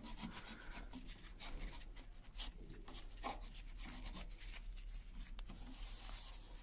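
A cloth rag wiping finish onto a wooden plane body: faint, irregular rubbing and scuffing.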